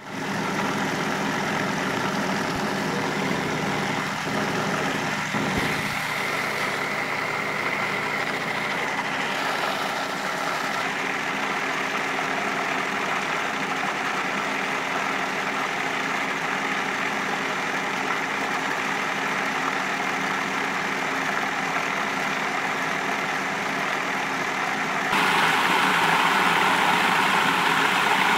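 Food processor motor running steadily as it churns cultured cream into butter. Near the end the sound turns suddenly louder and hissier.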